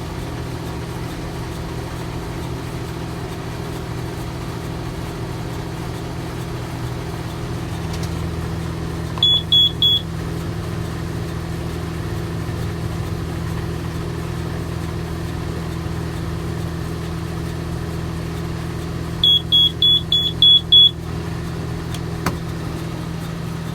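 Tractor engine running steadily, with the baler's in-cab control box beeping an error warning: three short high beeps about nine seconds in and a run of six beeps near twenty seconds.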